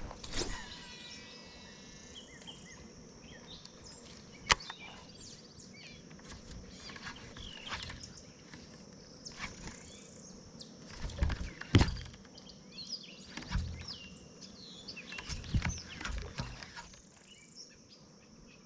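Small birds chirping and calling in short, rising and falling notes over faint outdoor background noise, with a few sharp clicks and knocks, the loudest about four and a half seconds in and near twelve seconds.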